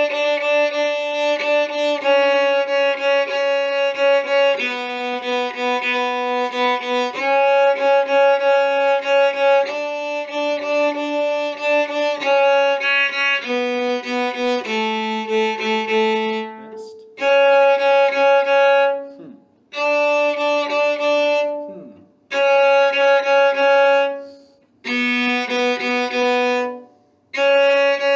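Solo cello bowed, playing a simple folk-tune part in held notes. The notes change every half second to two seconds at first; in the second half each long note is followed by a short break.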